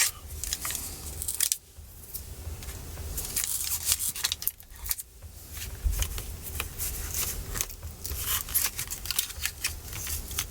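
Irregular scraping and crackling of a pry tool being worked under a glued-in laptop battery, with sharp clicks and tearing sounds as the adhesive gives and the cells lift off the case.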